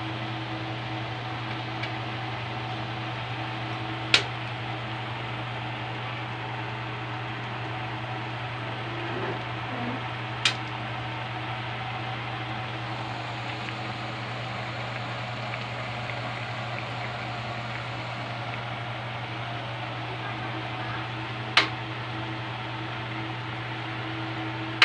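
Steady low hum and hiss of a pan of instant noodle soup simmering on the stove, broken three times by a sharp click of a metal ladle knocking the aluminium pan.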